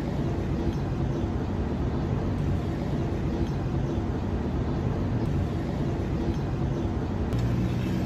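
Steady low mechanical drone with a hum, growing louder near the end.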